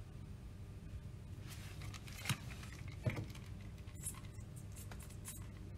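Small metal clicks from the rings of a mechanical shaft seal being handled, with two louder knocks a little after two and three seconds in. Near the end come short hissing spritzes of a spray bottle of soapy water wetting the seal, all over a steady low hum.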